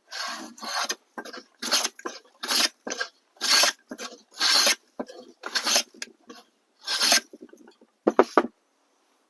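Block plane taking shavings off a wooden handle, about nine strokes roughly a second apart.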